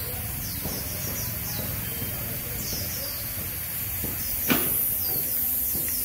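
Small birds chirping over a steady low background rumble, with one sharp knock about four and a half seconds in.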